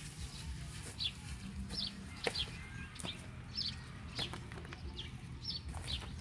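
Birds chirping: a steady run of short, high, falling notes about twice a second, with a couple of sharp ticks among them.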